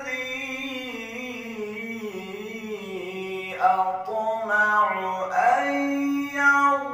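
A male Quran reciter's voice in melodic tajweed recitation, drawing out long ornamented notes. The pitch sinks slowly over the first few seconds, then rises again about five and a half seconds in.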